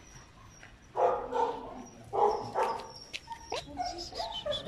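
Dogs barking, with a couple of loud barks about a second and two seconds in, then high-pitched whines and yips near the end as they crowd round a person in an excited greeting.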